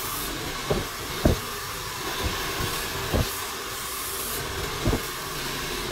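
Handheld hair dryer blowing steadily while styling hair with a round brush, with a few short knocks over the airflow.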